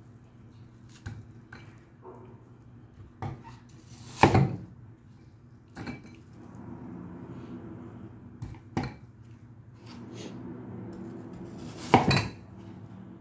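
Kitchen dishes and utensils clattering: scattered knocks and clinks, the two loudest about four seconds in and near the end, over a low steady hum.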